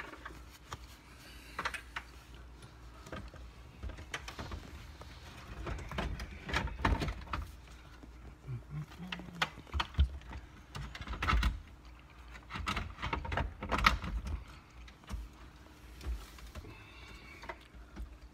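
Irregular clicks, taps and knocks of plastic trim parts and cable connectors being handled in a car dashboard, with the loudest knocks about halfway through and again near the end.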